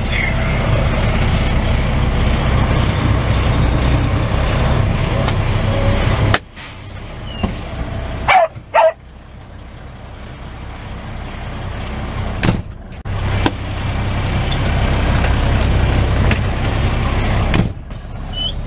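Semi truck idling, heard from inside the cab as a steady low rumble. About six seconds in the rumble drops out abruptly. Sharp clicks with brief squeaks follow around eight to nine seconds and another click near twelve, then the rumble comes back around thirteen seconds and gradually grows louder.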